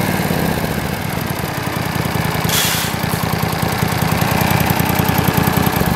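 Briggs & Stratton Vanguard 18 HP V-twin engine idling steadily with an even low pulse, and a brief hiss about two and a half seconds in.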